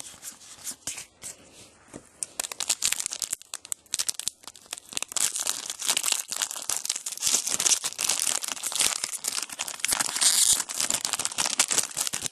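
A trading-card pack wrapper being torn open and crinkled by hand: a crackling rustle, sparse at first and growing dense and louder about two seconds in.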